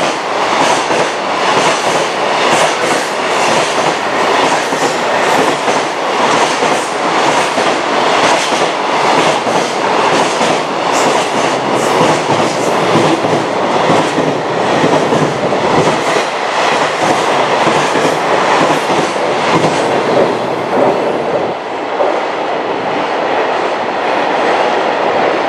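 Container wagons of a long freight train passing close at speed: a loud rush of wheels and air with repeated clickety-clack as the wheels cross rail joints. About 21 seconds in, the clatter thins out as the last wagons go by.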